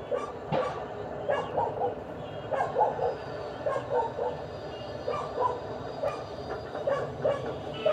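Dogs yapping in quick clusters of short barks, over a steady low background noise.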